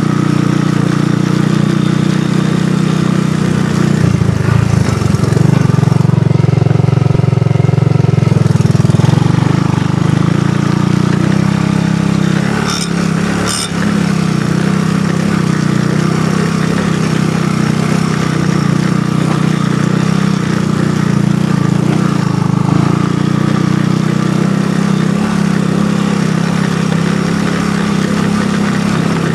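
ATV engine running steadily during a trail ride. It swells louder for several seconds about four seconds in, then eases off briefly around thirteen seconds in, where two short sharp ticks are heard.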